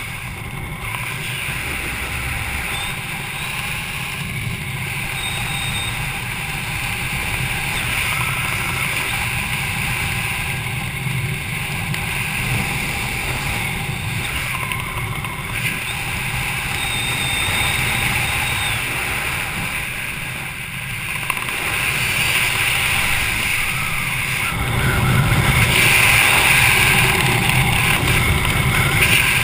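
Wind rushing over a helmet-mounted GoPro during a parachute canopy descent: a steady rumbling hiss that grows louder in the last few seconds.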